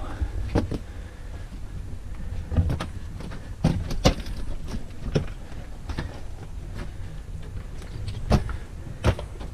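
Footsteps crunching over loose rock rubble on a mine tunnel floor, an uneven step every half second to a second, over a steady low rumble.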